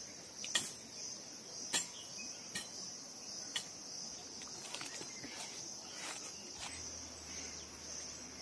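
Steady high-pitched insect chorus, a continuous drone, with a few sharp clicks spaced about a second apart.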